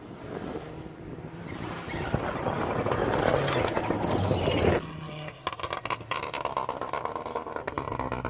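Mitsubishi Lancer Evolution rally car's turbocharged four-cylinder engine at full throttle on gravel, growing louder to a peak as it passes close, then cut off suddenly a little past halfway. After that, another rally car's engine is heard further off, with rapid crackles.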